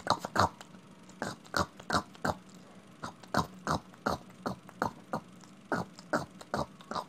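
Someone munching popcorn: short crunchy chews, about two to three a second, in runs with brief pauses.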